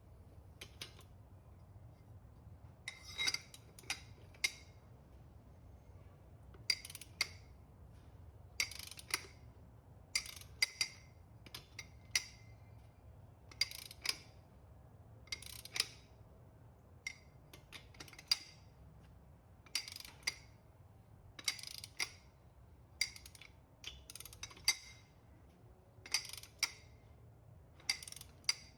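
Socket ratchet wrench working the lug nuts on a truck wheel: short runs of sharp pawl clicks on each back-swing, repeating about every one and a half to two seconds.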